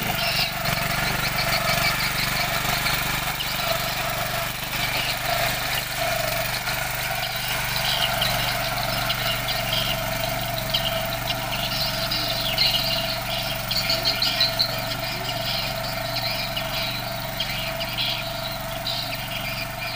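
Firman FTL 620 mini tiller's small petrol engine running steadily under load as its rotary tines churn through soil.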